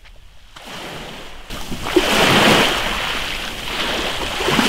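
Small waves washing in over a shingle beach, a rushing hiss that is faint at first, jumps louder about a second and a half in, and swells again near the end.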